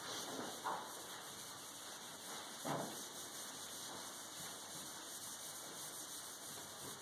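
Whiteboard eraser wiping across the board, a steady rubbing hiss, with a soft knock nearly three seconds in.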